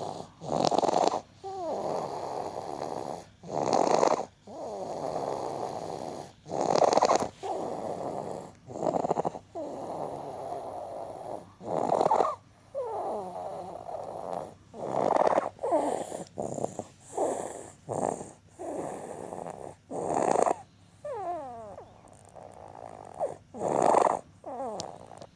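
Wheezing breathing: slow, repeated breaths about every three seconds, each with a loud rasping breath and thin whistling tones that slide down in pitch.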